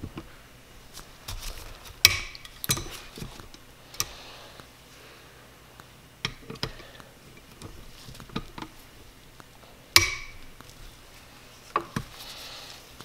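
Metal hand tools clinking and knocking on the cylinder head of a Yamaha YZ250F engine as its head bolts are loosened with a socket and breaker bar: a handful of sharp, scattered clanks, the two loudest about two seconds in and about ten seconds in.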